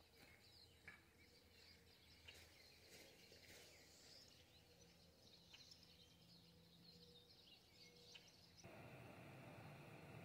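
Near silence with faint, scattered bird chirps. About eight and a half seconds in, a steady low hiss comes in abruptly.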